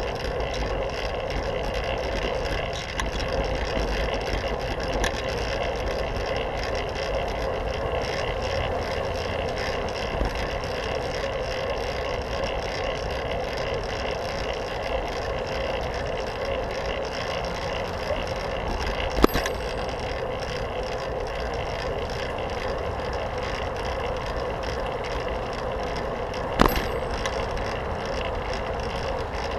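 A fixed-gear bicycle rolling along a paved bike lane: steady tyre and wind noise, with car traffic going by just beside it. Two sharp knocks stand out, about seven seconds apart, in the second half.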